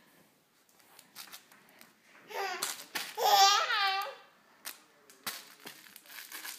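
A baby of about four months vocalising: two drawn-out, wavering high-pitched coos or squeals a little over two seconds in, with a few light taps around them.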